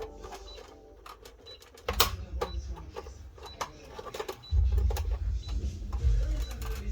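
Plastic parts of a kitchen safety slicer clicking and knocking as a piece is fitted onto it by hand, in irregular sharp clicks, with a low rumble of handling joining about halfway through.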